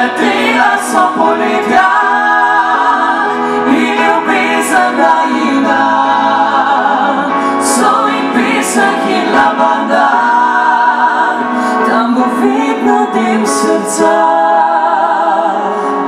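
A mixed vocal group of men and a woman singing a cappella in harmony through a PA system.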